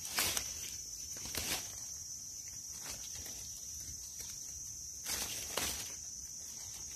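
Dry leaf litter rustling and crackling a few times as mushrooms are cut from the forest floor with a knife and gathered by hand, over a steady high-pitched insect drone.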